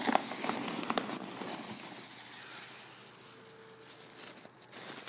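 Clear disposable plastic glove and plastic wrapping crinkling and rustling as they are handled. It is busiest in the first two seconds, with a few sharp clicks, then quieter, and picks up again near the end.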